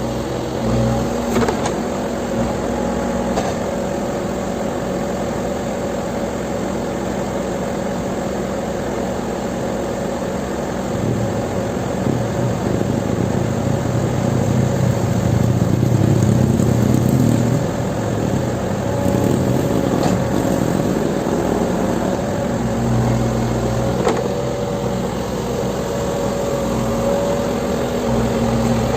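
Backhoe loader's diesel engine running steadily, getting louder for a few seconds about halfway through as it works harder.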